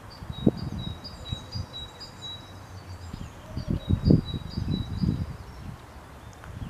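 Irregular gusts of wind rumbling on the microphone, with small birds chirping a short high call over and over.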